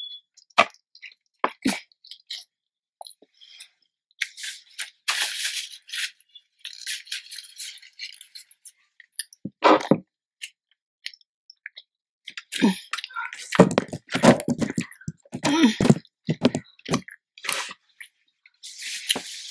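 Close-up eating sounds: chewing and lip-smacking on a burrito, with scattered wet clicks and short rustling noises.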